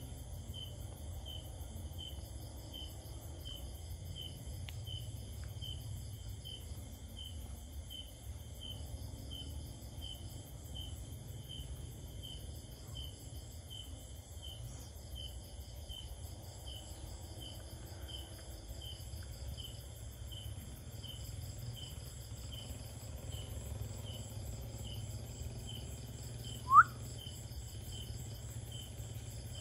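Insects chirping steadily: an even chirp about one and a half times a second over a denser high trilling chorus, with a low rumble beneath. Near the end comes a single short rising squeak, the loudest sound.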